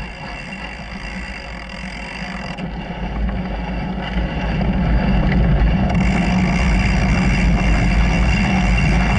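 Small engine of a mini trail bike running under way, getting louder from about three seconds in and then holding steady.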